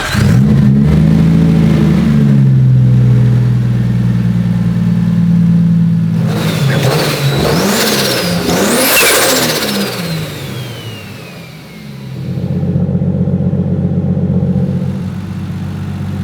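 Car engine running after the exhaust manifold was refitted, then revved twice near the middle with a high whistle that rises with the revs and falls away slowly, before settling back to a steady idle. The owner puts a remaining exhaust-leak noise down to a slightly warped manifold that still needs retightening after heat-cycling.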